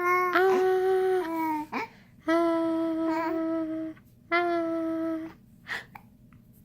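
Young baby cooing: three long vowel sounds held at a steady, fairly high pitch, the first two each over a second and a half long and the third about a second long, with short pauses between.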